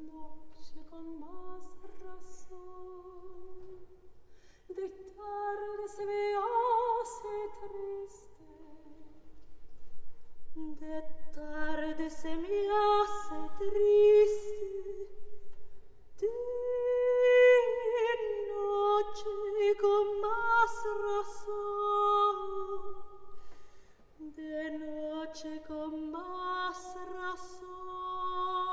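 A woman singing a slow Peruvian baroque song in long phrases with vibrato, with short pauses between the phrases.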